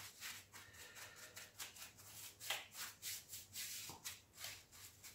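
Small paintbrush scrubbed and dabbed against the brick and plaster inside a hole in the wall, bristles scratching in faint, quick, irregular strokes, a few a second. The brush is working diluted SBR primer into the dry brickwork.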